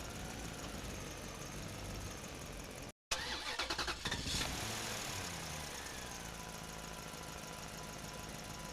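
An engine running steadily, cutting out briefly about three seconds in, then starting again with a quick run of rapid chugs before settling back to a steady run with a falling pitch.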